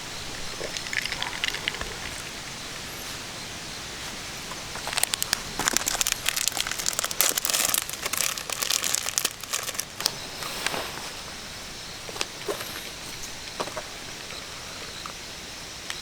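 Rustling and crackling of dry leaves and twigs, in a dense run of crackles from about five seconds in to about ten seconds, with a few scattered snaps before and after.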